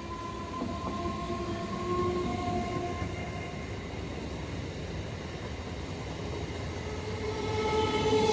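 Local passenger train moving through a station: a steady low rumble with held whining tones, growing louder near the end as a new whine comes in.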